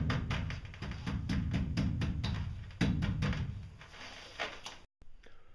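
Gloved hands rubbing and slapping wet mortar over tiles, a quick irregular run of wet slaps and scrapes that thins out and stops about five seconds in.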